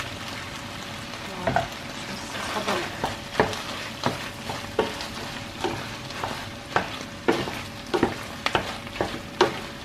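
Pasta in tomato sauce cooking in a hot frying pan while a wooden spoon stirs it. The spoon knocks and scrapes against the pan about once or twice a second, starting about a second and a half in.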